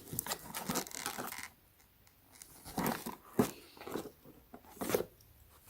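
Tightly sealed packaging being cut and pried open with a knife: irregular bursts of scraping and tearing with a few sharp clicks.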